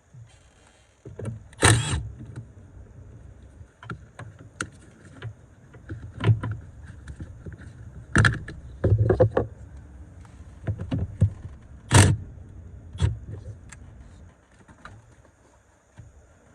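A series of irregular knocks, clicks and clunks, the loudest about 2, 8 and 12 seconds in, like hard parts being handled and set down.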